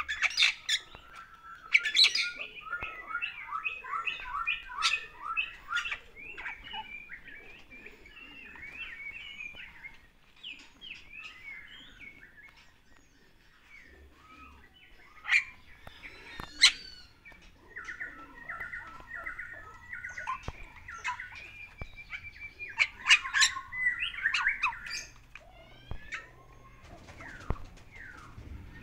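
Bali myna (Bali starling) singing: bouts of fast repeated chattering notes broken by loud, sharp whistles and clicks, with a quieter spell midway.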